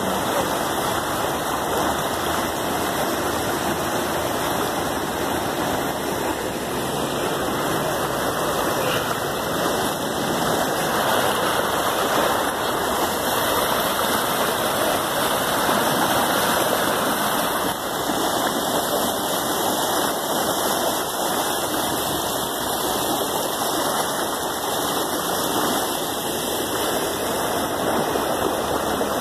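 Swollen, flood-stage river rushing past a bridge in a steady, loud wash of water noise, with floodwater churning white against the stone abutment.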